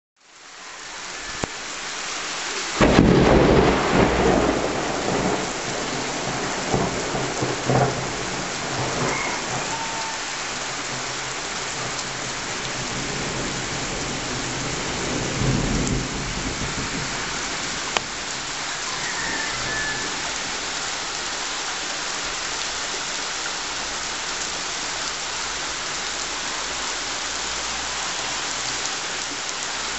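Heavy rain pouring down in a steady hiss. Thunder rumbles loudly about three seconds in, more faintly a few seconds later, and again around the middle.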